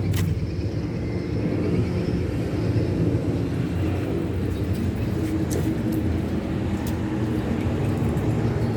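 Steady low rumble of a Boeing 737 airliner's jet engines as it passes overhead.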